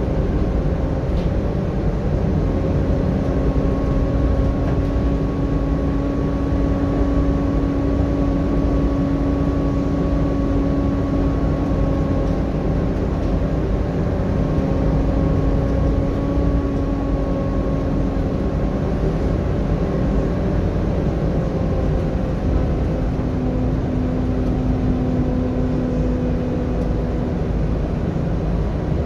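Volvo B7TL double-decker bus on the move, heard from inside the lower deck: its 7-litre six-cylinder diesel runs steadily under a low rumble of road noise, with a steady whine that slowly rises and falls in pitch.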